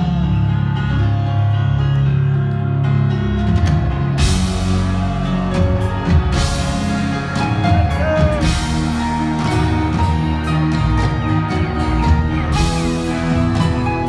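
Rock band playing live: keyboards and guitar, with drums and cymbal crashes coming in about four seconds in.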